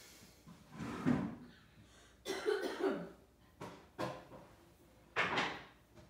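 A person coughing, about five separate short coughs over a few seconds.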